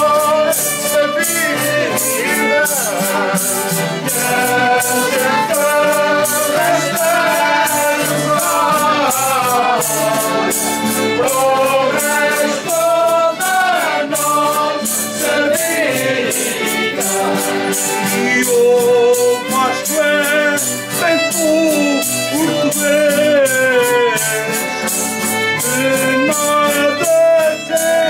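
Traditional Azorean folk music: voices singing to accordion, over a quick, steady beat.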